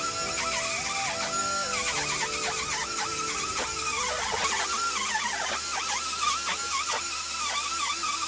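A hand grinder whining against steel, its pitch dipping again and again as it is pressed in to grind down welds on the car's rear quarter panel. Background music plays along with it.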